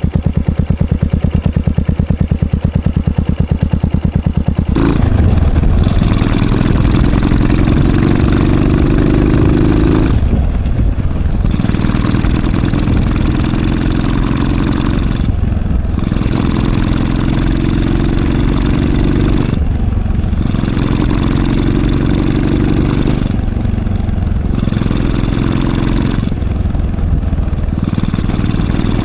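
Yamaha SR400's single-cylinder four-stroke engine and exhaust: slow, even thumping at low revs for the first few seconds, then running harder under way, the sound dropping off briefly five times, as at gear changes.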